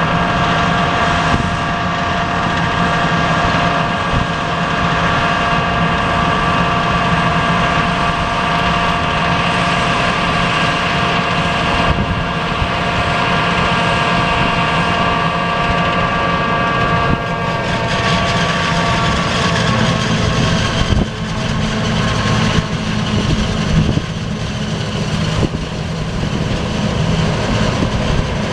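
John Deere forage harvester chopping corn for silage: engine drone under a steady high whine from the machine. About two-thirds of the way through, the whine fades, leaving the lower drone with a few sharp knocks.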